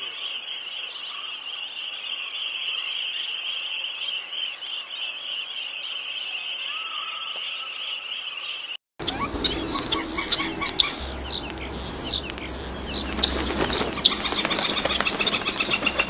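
A steady chorus of insects buzzing. It cuts off abruptly about nine seconds in, and a bird takes over, repeating short, sharp falling chirps, about one or two a second, over a low wind rumble.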